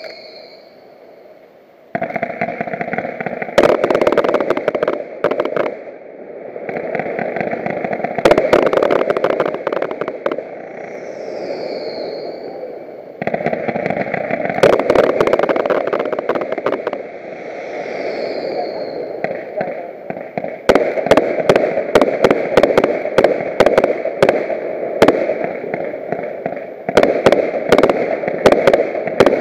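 Fireworks display: aerial shells bursting with sharp bangs and crackling over a steady rushing noise, with a few short falling whistles. In the last third comes a fast, dense run of bangs.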